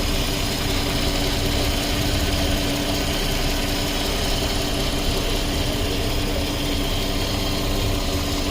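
A Volkswagen Passat 3.6-litre V6 engine idling steadily, with an even hum that does not change.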